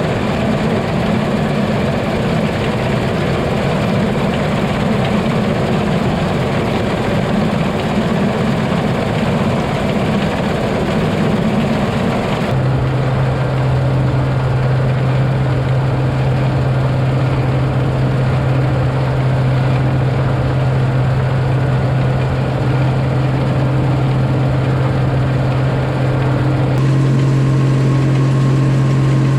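Combine harvester running steadily while cutting wheat, a continuous engine and machinery drone. The sound changes abruptly about twelve seconds in, when a steady low hum comes to the fore, and shifts again near the end.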